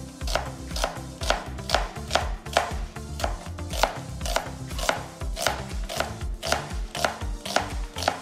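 Chef's knife slicing a red onion on a cutting board, each cut ending in a sharp knock of the blade on the board, in a steady rhythm of about two strokes a second.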